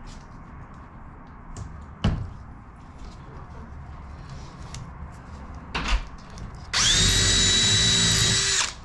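Cordless drill spinning up and drilling into the aluminium wing spar for about two seconds near the end, a steady whine that stops suddenly. Before it, a couple of knocks and small clicks as parts are handled on the bench.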